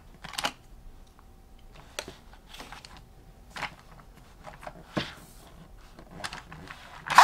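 Plastic toy rocket launcher being handled: a few scattered light clicks and rustles as a ripcord is fitted into it. Right at the end a much louder rattling burst begins as the cord is yanked to launch the car.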